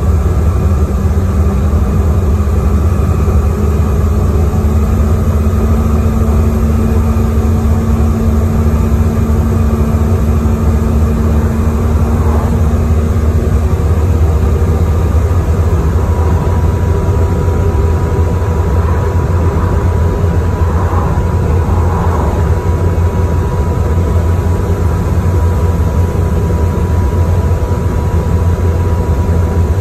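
Bus engine and drivetrain droning steadily from inside the passenger saloon while the bus drives along. A faint steady whine comes in about halfway through.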